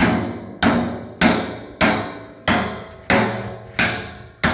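Hammer striking a steel drum in a steady rhythm, about eight blows a little over half a second apart, each one ringing and fading before the next.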